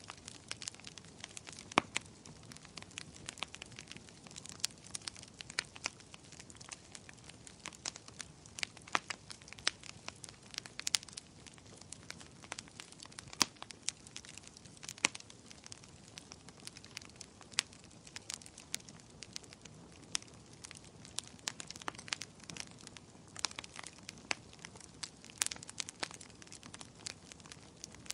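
Wood fire burning, with irregular sharp crackles and pops over a soft steady hiss.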